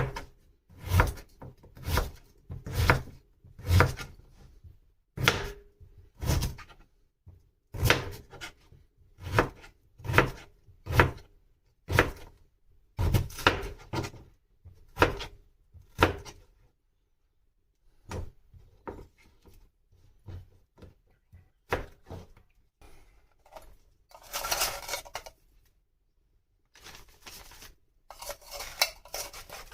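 Kitchen knife chopping on a cutting board in repeated strokes, about one or two a second, for roughly the first sixteen seconds. After that come lighter, sparser knocks and two short scratchy, rustling stretches near the end.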